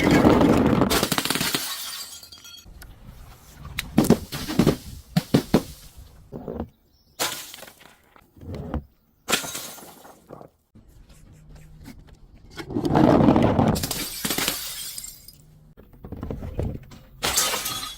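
Glass bottles smashing one after another: a series of separate crashes and shattering, with quick sharp cracks in between and abrupt cuts from one break to the next.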